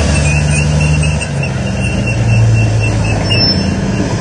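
M48 tank driving off, its engine running with a low note that shifts about a second in, while its steel tracks give a high, steady squeal that stops near the end.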